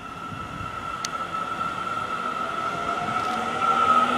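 Seibu 30000 series electric train moving off and gathering speed, with a steady high tone and, from about three seconds in, motor whine rising in pitch and growing louder as it accelerates.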